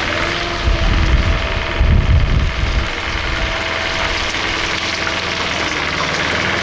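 Heavy lorry's engine running, with a deeper rumble swelling from about a second in to about three seconds in, and a faint steady whine above it.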